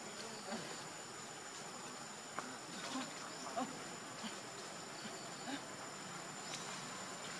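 Steady high-pitched insect drone, a thin unbroken tone, with a few faint short clicks and rustles over it, the loudest about three and a half seconds in.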